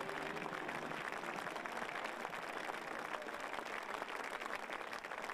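Spectators in the stands applauding, a steady spread of many hands clapping at once.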